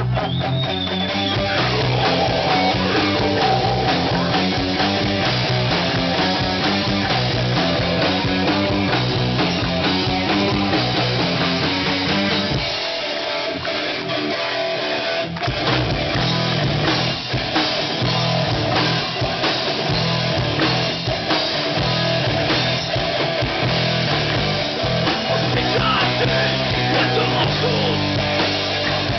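A live rock band playing loud: electric guitars, bass guitar and drum kit. About twelve seconds in, the bass and drums drop away for about three seconds, then the full band comes back in.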